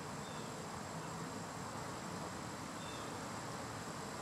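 Steady outdoor background of summer insects, a constant high-pitched drone with no breaks, and one faint short chirp about three seconds in.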